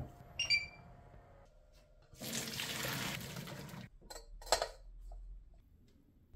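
A glass pot lid clinks with a brief ringing tone. About two seconds in, hot cooking water pours from a pot through a mesh strainer of boiled potatoes into a steel sink for about a second and a half. A sharp metal clank follows.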